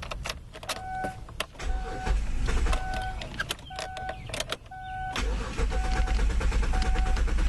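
The 2005 Kia Sedona's engine is started: a short burst of low engine sound near two seconds in, then steady running from about five seconds in. Over it, the van's warning chime beeps about once a second.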